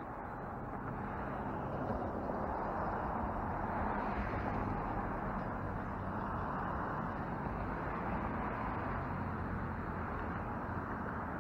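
Steady rushing outdoor background noise with no distinct events, growing a little louder over the first couple of seconds.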